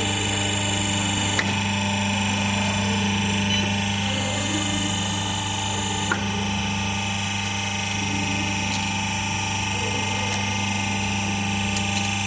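Y120D hydraulic hose crimping machine running, its electric motor and hydraulic pump giving a steady hum, with a couple of faint clicks.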